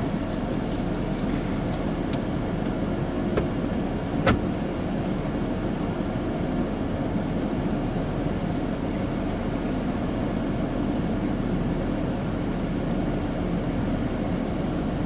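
Steady mechanical drone, strongest in the low range, with two short sharp clicks about three and four seconds in.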